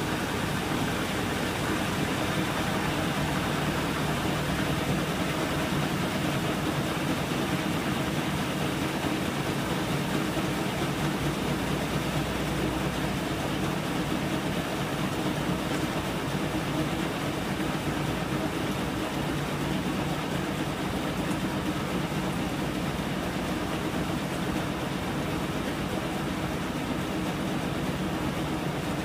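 Samsung top-loading washing machine running through a cycle with a load of towels: a steady motor hum with the drum turning.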